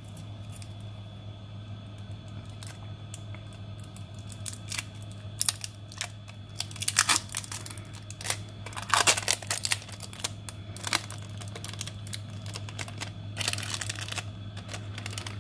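Amber Kapton tape being peeled off a circuit board and crumpled in the fingers, crackling and crinkling in irregular bursts, busiest about five to seven seconds in, around nine seconds and near the end. A steady low hum runs underneath.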